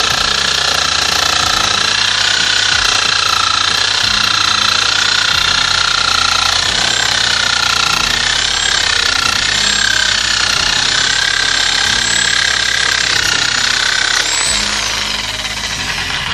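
Electric reciprocating saw with a fine-tooth blade cutting through thick bamboo, running loud and steady, its motor whine wavering in pitch with the load. Near the end the blade comes through and the motor winds down.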